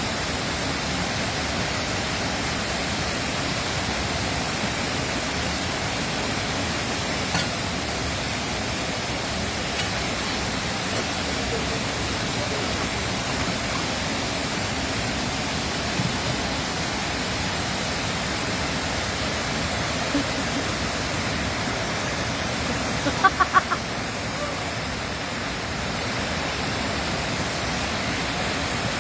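Running water rushing steadily, an even, unbroken wash of sound. A little over three quarters of the way through come four quick, sharp, high chirps.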